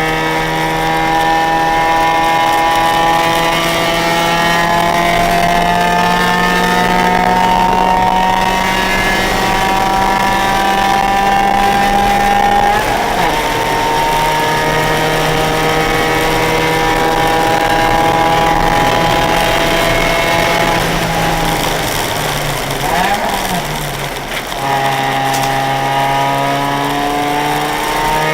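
Car engine on a track lap, heard from inside the car: a long pull with the pitch climbing steadily, a gear change about halfway, then steady running. Near the end the pitch wavers and drops as the car brakes and shifts down, then climbs again under acceleration.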